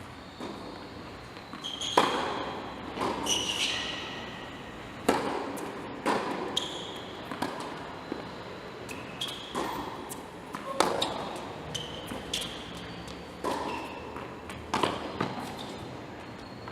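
A series of sharp ball impacts, about one every second or so, in an echoing indoor hall, with short high squeaks after many of them.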